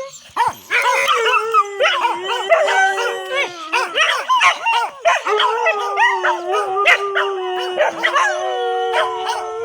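Several dogs howling and barking together: long drawn-out howls that slowly fall in pitch, three in a row, overlapped throughout by quick barks and yips.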